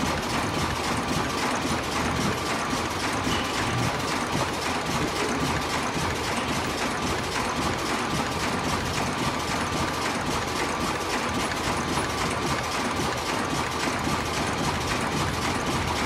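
An automatic ultrasonic face mask machine running at production speed: a steady, rapid mechanical clatter of many fast clicks, with a constant thin tone running through it.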